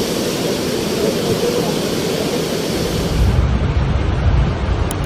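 Steady rushing of floodwater, then about three seconds in an abrupt change to a deep low rumble.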